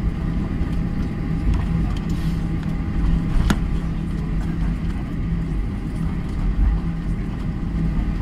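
Boeing 737 cabin while taxiing: the jet engines run at idle with a steady hum over a low rumble. One sharp click about three and a half seconds in.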